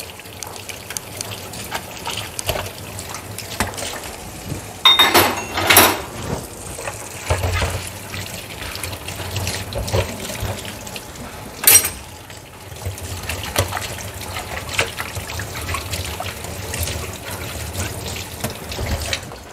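Washing dishes by hand under a running kitchen tap: steady water from the faucet into the sink, with a few sharper clatters of dishes, the loudest about twelve seconds in.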